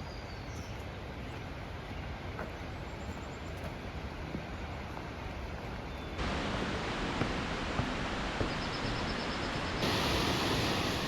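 Steady rush of falling water, a waterfall, stepping up louder about six seconds in and again near the end.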